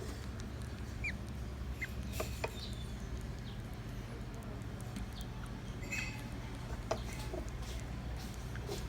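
Young African lovebirds giving short, high chirps now and then during hand-feeding, over a steady low hum.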